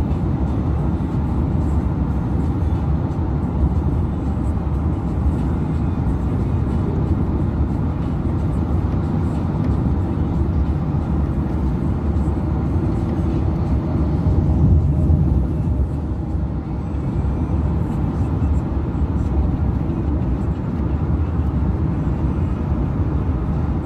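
Steady low rumble of road and engine noise heard inside a moving vehicle's cabin at highway speed, swelling slightly about two-thirds of the way through.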